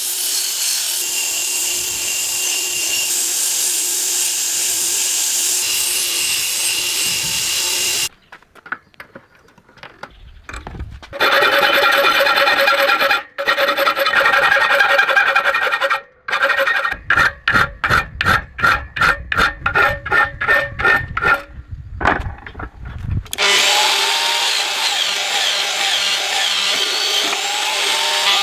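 Forged steel knife blade being sharpened: steady abrasive scraping of metal, then after a short break loud scraping with a metallic ring and a run of quick back-and-forth strokes, about three a second, before the steady scraping returns.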